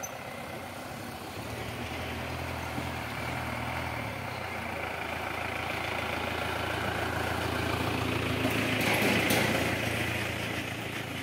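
A vehicle engine running steadily with a low hum. It grows louder to a peak about nine seconds in, then eases off.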